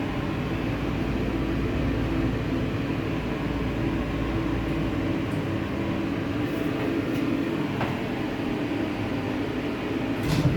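Inside a thyssenkrupp passenger elevator car on the way down: the steady hum of the cabin's new ventilation fan together with the rumble of the car travelling in the shaft. The deep rumble drops away about halfway through, and a short knock comes near the end.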